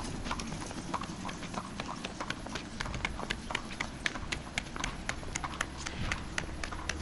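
Horse hooves clip-clopping on an asphalt road, a quick, even run of several hoofbeats a second.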